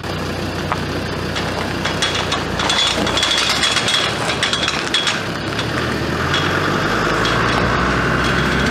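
Tow car's engine idling steadily.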